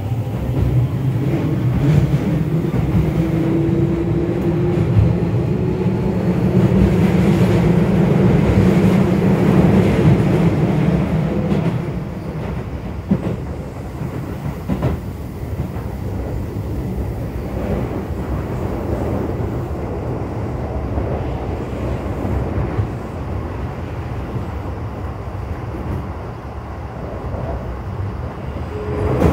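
Keio 8000 series electric train with a Hitachi SiC-VVVF inverter, accelerating: the traction motor whine rises in pitch over a loud rumble. About twelve seconds in the power cuts and the train coasts, leaving steady wheel-and-rail noise with occasional rail-joint clicks.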